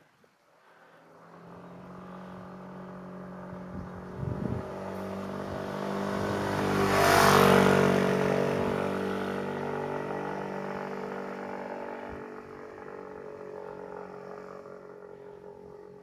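A motorcycle approaching from behind and passing, its engine note and road noise growing to a peak about seven seconds in, then fading as it pulls away ahead.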